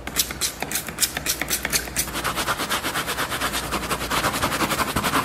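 A spray bottle squirting onto a mattress, then a stiff scrubbing brush scrubbing it fast. The strokes come a few a second at first and about ten a second from about two seconds in.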